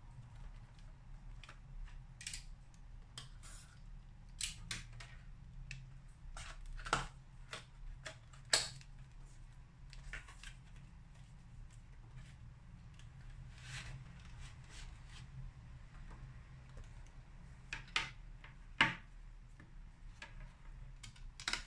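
Cardboard box and clear plastic packaging being opened and handled on a table: scattered clicks, taps and crinkles, a few of them sharper snaps, over a faint steady low hum.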